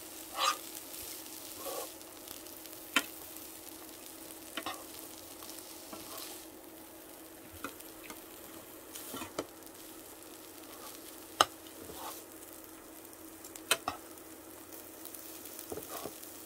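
Dried shredded squid and green chili sizzling as they are stir-fried in a nonstick frying pan, with tongs and a spoon clicking and scraping against the pan now and then. A steady low hum sits underneath.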